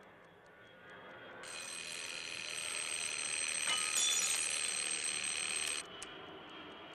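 A clock ticking, then a bell ringing steadily for about four seconds, growing louder, and cutting off suddenly.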